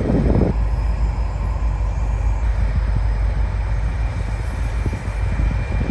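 Trains at a rail yard: a General Electric diesel locomotive's steady low rumble mixed with the rolling noise of a passing passenger train, louder in the first half second and then even.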